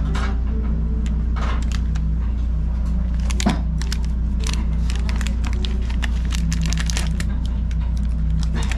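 Plastic sachet crinkling as it is handled and squeezed out, with scattered crackles and one sharper snap about halfway through, over a steady low hum.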